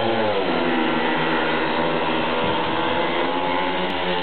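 Four speedway motorcycles' 500cc single-cylinder methanol engines running flat out together as the riders leave the start and race into the first bend. Their many pitches overlap, dipping briefly near the start and then climbing and shifting.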